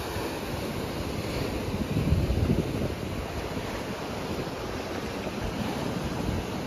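Ocean surf breaking and washing in, with wind buffeting the microphone in gusts, strongest about two seconds in.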